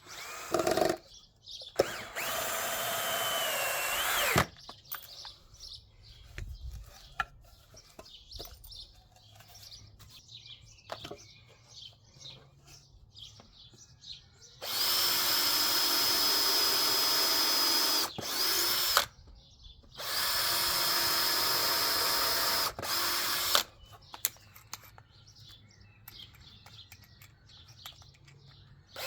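Power drill running in bursts into wood: two runs near the start, the second about two seconds long and dipping in pitch as it stops, then two longer steady runs of about three seconds in the second half, drilling holes and driving screws to join the wooden frame. Small handling clicks and faint birdsong between the runs.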